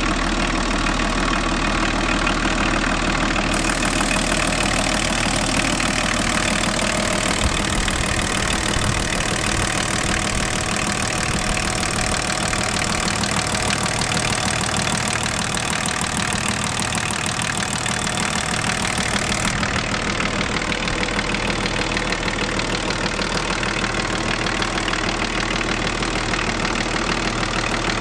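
BMW 325tds 2.5-litre straight-six turbodiesel idling steadily, with an abnormal dull knocking in the background whose cause has yet to be found.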